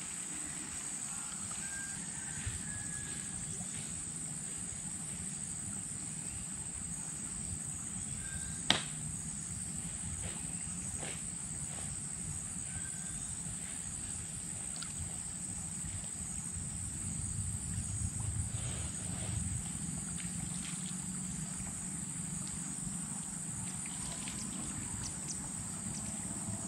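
Tropical forest ambience: a steady high-pitched insect drone over a low rush, with a few short chirps and one sharp click about nine seconds in.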